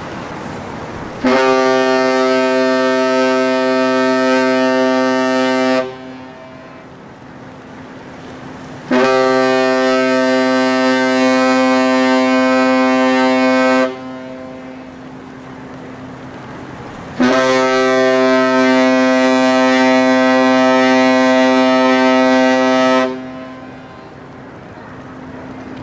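The cruise ship Asuka II's whistle sounding three long blasts, each a steady tone lasting about five to six seconds and ringing on briefly after it stops: the traditional three-long-blast farewell signal of a ship leaving port.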